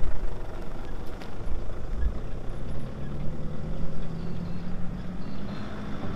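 An engine running with a steady low drone, which is plainest through the middle seconds and fades near the end.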